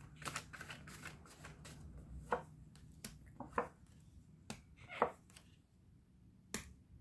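Tarot cards being shuffled and handled: faint, irregular papery clicks and flicks, quick runs of them at first, then single snaps spaced out, with a short lull near the end.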